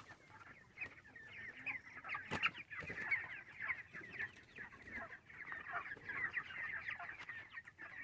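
A large flock of 28-day-old broiler chickens calling all at once, many short overlapping peeps and clucks in a steady chatter. A single sharp click comes about two and a half seconds in.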